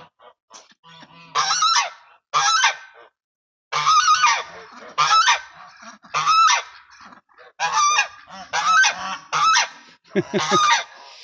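Domestic goose honking repeatedly: about nine loud honks, each under a second long, spaced roughly a second apart.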